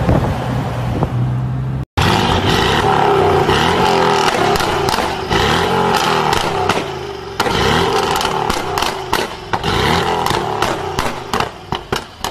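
Mercedes-AMG GLE Coupe's engine being revved while stationary, its pitch rising and falling, with the exhaust crackling and popping throughout. The pops come thick and fast near the end as the revs drop. In the first two seconds, before a short cut, another AMG coupe's engine is running with a steady low note.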